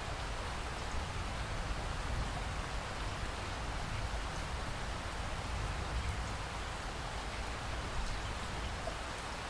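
Steady rain falling, an even hiss with faint scattered drop ticks and a low rumble beneath.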